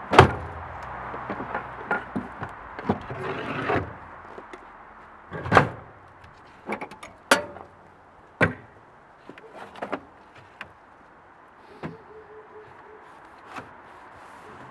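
Knocks and clunks of parts and boxes being handled against the wooden floor and sides of a plywood shipping crate, about half a dozen sharp ones spread out, with rustling during the first four seconds.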